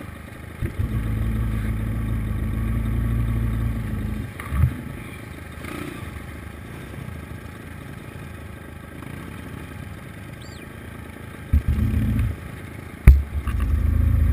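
Dirt bike engines running. A nearby bike runs steadily for the first few seconds, then the sound drops. Near the end, bikes come closer and rev, with one sharp knock about 13 seconds in that is the loudest moment.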